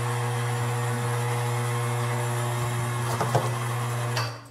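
Ceiling-mounted electric hoist motor running with a steady low hum as it lifts a converted-keg brew kettle full of hot water on its cable, then stopping near the end.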